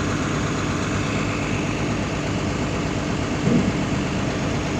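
Excavator's diesel engine running steadily at idle, with a brief louder sound about three and a half seconds in.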